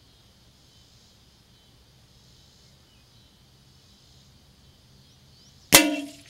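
A single shot from a Savage Mark II FVSR .22 LR rifle firing a standard-velocity round: one sharp crack near the end, with a short ringing tail. A faint steady insect buzz runs underneath.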